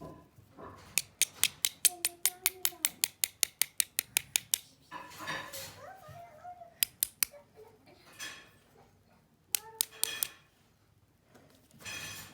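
Runs of sharp metallic clicks, about six a second, from an S.T. DuPont lighter being worked by hand, with a few short voice sounds in between.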